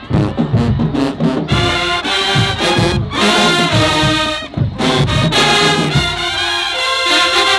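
HBCU-style marching band playing in the stands: drum hits open it, then the full brass section with sousaphones comes in with loud chords, held long near the end.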